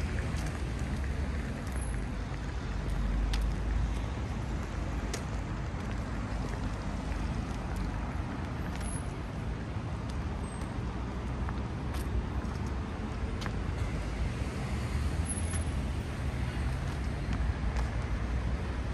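City street ambience of road traffic: a steady low rumble of passing vehicles, with a few faint scattered clicks.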